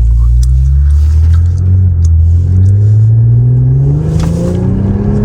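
Infiniti Q50's turbocharged engine under hard acceleration on a freshly replaced turbo, its pitch climbing steadily through one gear, then dropping suddenly at the upshift at the very end.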